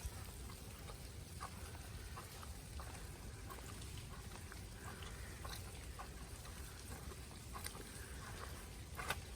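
Footsteps in wet, slushy snow: soft irregular squelching steps at about two a second over a steady low rumble, with one sharper step about nine seconds in.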